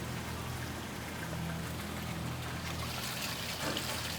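Steady hiss of rain falling, with a low even hum underneath that fades about three seconds in.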